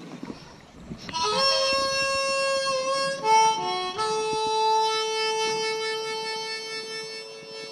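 Harmonica music: a few held chords, changing twice, the last one long and fading out toward the end.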